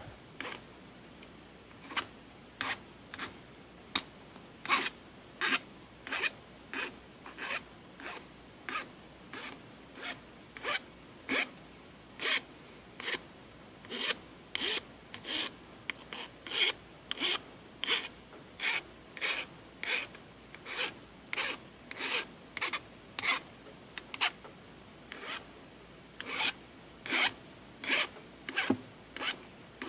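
A hand file rasping the bare copper tip of a cheap soldering iron in short, even strokes, about one and a half a second. The burned tip is being filed down to reshape it into a chisel tip.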